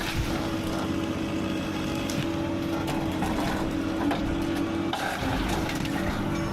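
Engine of a forestry harvester running steadily with an even hum, its pitch wavering slightly about four to five seconds in.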